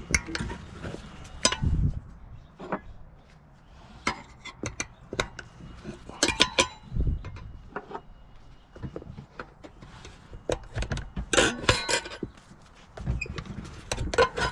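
Tire spoons clinking, knocking and scraping against a dirt bike wheel rim as the tire bead is levered off: irregular metallic clicks, with denser flurries about six seconds in and again around eleven to twelve seconds.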